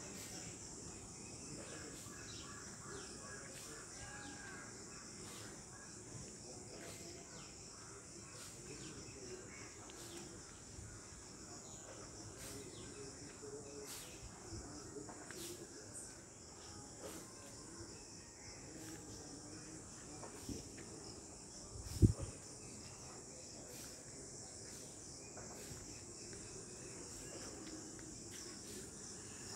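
Steady high-pitched insect chirring, with one sharp knock about two-thirds of the way through.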